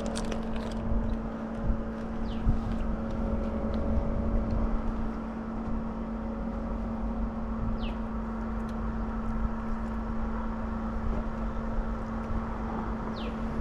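A steady low motor hum over a rumble, with three short falling whistles about five seconds apart.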